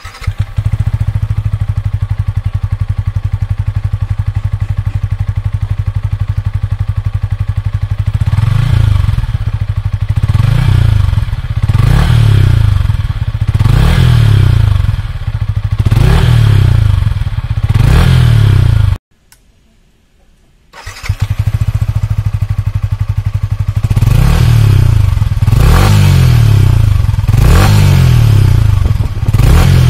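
Yamaha MT-15's 155 cc single-cylinder four-stroke engine through its stock exhaust, idling steadily, then revved in a series of short blips that rise and fall in pitch. The sound cuts off for about two seconds about two-thirds in, then the engine idles again and is blipped repeatedly.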